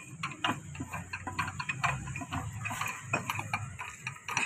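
Irregular small metallic clicks and taps from the steel gears on the shaft inside the open Sonalika 750 tractor gearbox case as they are handled by hand.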